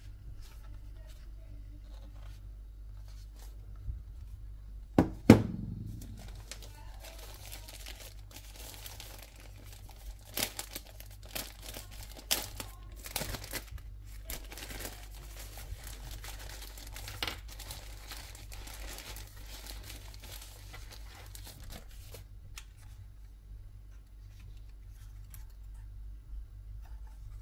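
Packaging being handled: two loud thumps about five seconds in, then crinkling and tearing of wrapping with sharp clicks, which dies away after about seventeen seconds, over a steady low hum.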